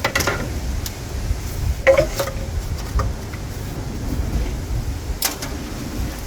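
Hand tools clinking on metal engine parts during removal of the engine's rocker cover: four separate short clinks, one about two seconds in with a brief ring, over a steady low rumble.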